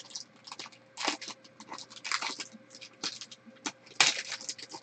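Foil trading-card pack crinkling and tearing as it is opened by hand, in short crackling spells about a second apart, the loudest near the end.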